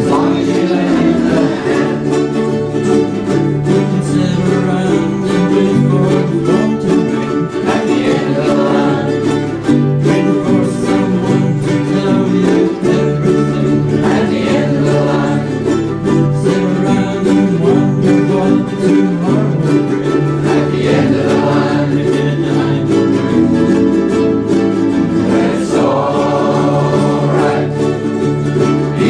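Several ukuleles strummed in chords while a group of voices sings along.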